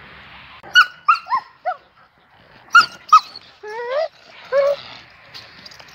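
Dogs wrestling in play, giving a string of short high yelps and whines: several quick falling yelps about a second in, two more around three seconds, then a rising whine and a last yelp.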